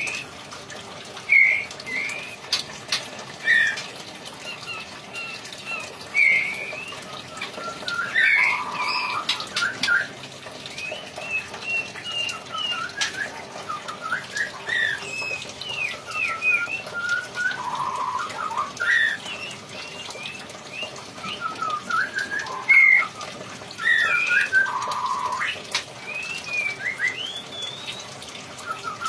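A songbird singing a varied song of short whistled notes, slurs and trills, in phrases repeated every few seconds.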